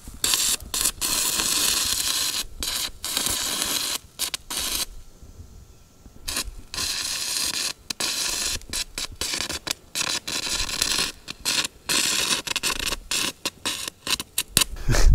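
Shielded metal arc (stick) welding arc from a 7018 electrode fed straight from a Lishen LTO battery pack: a loud crackling, sizzling hiss that keeps breaking off and restriking, with a pause of about a second and a half near the middle. The arc is running very hot for the thin steel and throws a lot of spatter.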